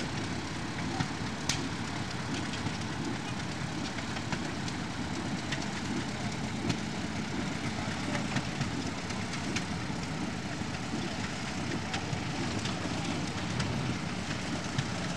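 Steady low rumble of old engines running, with a few scattered light clicks.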